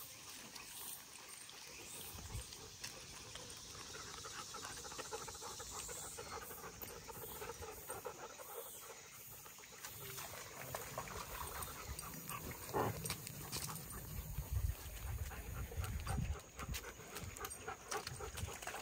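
A pack of dogs on the move, panting, with small clicks and scuffs throughout. From about halfway on, irregular low rumbles and a few louder peaks come in.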